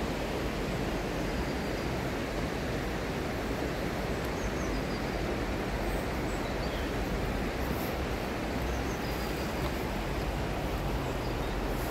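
The Isar river rushing over stony shallows, a steady noise of flowing water, with faint short bird chirps here and there.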